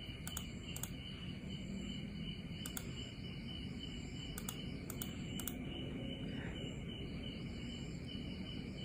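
Insects chirping steadily in the background, with faint light clicks every so often over a low hum.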